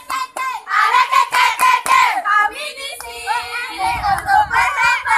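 A group of girls chanting and singing a rhythmic yel-yel cheer together, punctuated by hand claps.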